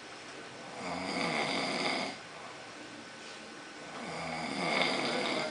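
A man snoring in his sleep: two long snores about three seconds apart, each lasting well over a second.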